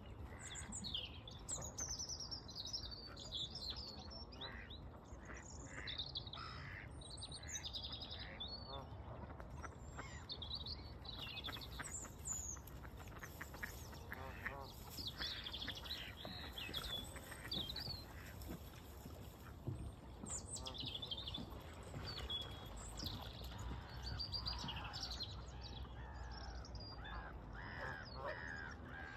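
Waterbirds and small birds calling at a lake: many short high chirps and calls throughout, with ducks quacking now and then, over a low steady rumble.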